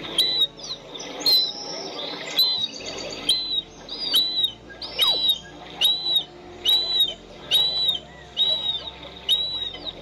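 Western marsh harrier calling: a long run of short, high whistled notes, each rising and falling, at about one and a half a second.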